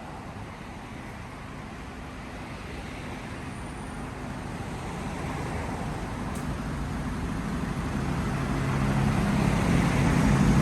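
A motor vehicle's engine and road noise growing steadily louder, with a low engine hum coming up strongly near the end.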